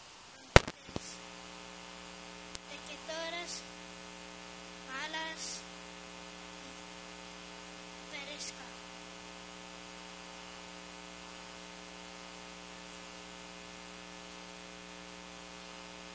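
A sharp click as the handheld microphone's sound system comes on, then a steady electrical mains hum with many overtones through the PA.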